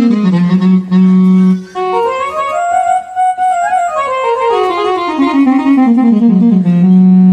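Casio CT-X870IN keyboard playing one of its General MIDI reed-instrument tones. It holds a low note, then runs a scale one note at a time up about two octaves and back down, ending on a long held low note.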